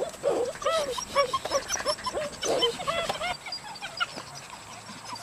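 Several Dutch Shepherd puppies yipping and squealing in rough play: many short, high calls in quick, overlapping succession, thinning out about three seconds in.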